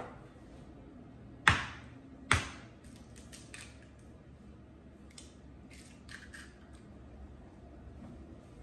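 An egg rapped twice against the rim of a mixing bowl, two sharp knocks under a second apart, followed by a few faint clicks as the shell is pulled open over raw meat.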